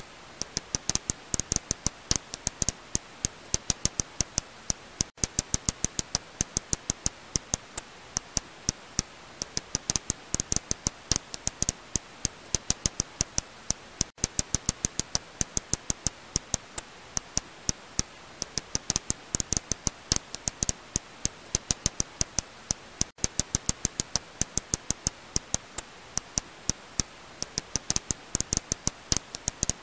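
Serotine bat echolocation calls heard as rapid dry clicks, several a second in irregular runs, over a steady hiss.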